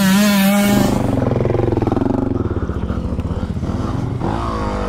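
For about the first second, the end of an intro jingle with a swoosh. Then dirt bike engines run with a fast, even beat, and near the end one is revved up and back down.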